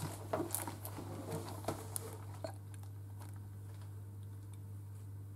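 Faint rustles and light taps from a small cardboard chocolate box being handled, mostly in the first couple of seconds, over a steady low hum.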